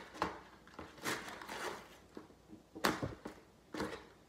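Cardboard shipping box being handled and opened by hand: a few short rasping, rustling scrapes and one sharp click a little under three seconds in.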